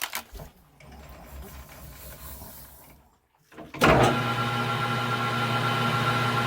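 Metal lathe switched on nearly four seconds in, its motor and spindle then running with a steady hum. Before that, a few clicks and faint handling sounds.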